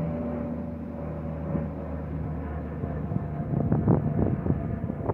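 Engines of a plane that has just taken off, a steady drone that fades as it climbs away. Wind buffets the microphone in gusts about three and a half to four and a half seconds in.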